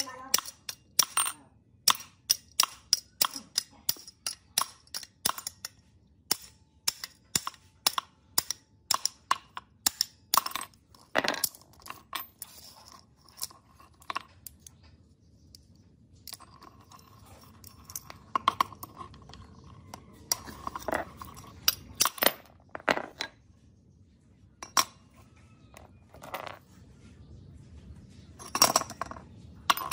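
Hammer striking steel: sharp metal-on-metal blows on a small vise part and rod resting on a steel plate. The blows come about one or two a second for the first dozen seconds, then after a short pause they come only every few seconds.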